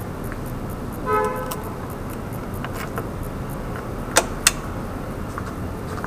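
A short vehicle horn toot about a second in, over steady background noise. A few seconds later come two sharp clicks in quick succession, the loudest sounds.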